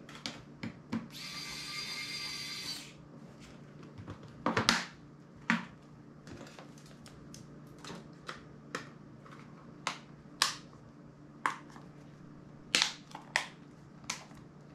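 A small electric precision screwdriver whirs for about two seconds. It is followed by a scattered run of sharp plastic clicks and snaps as the parts of a smartphone's case are fitted and pressed back together.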